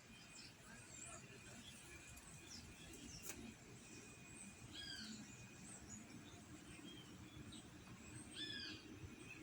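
Faint birds chirping over a low background rumble, with two louder arching calls about five seconds in and again near the end.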